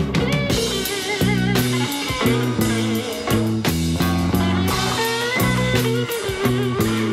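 Live electric blues: two electric guitars, a Flying V and a Stratocaster, playing over bass and drums. Lead lines of bent notes with wide vibrato waver through the passage.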